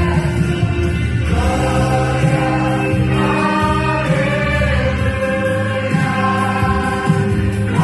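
Vocal group singing a gospel song in harmony over a steady accompaniment with sustained bass notes.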